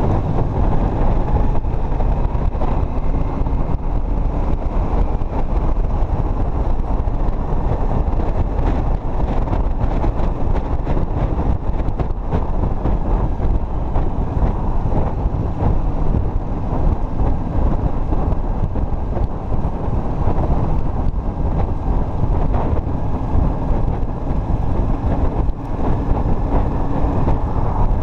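Wind buffeting the camera microphone over a Yamaha MT-07's 689 cc parallel-twin engine running steadily at city speed, around 30 to 50 km/h.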